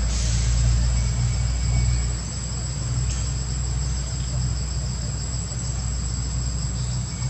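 Steady high-pitched insect chorus with a continuous shrill tone, over a low rumble that eases off about two seconds in.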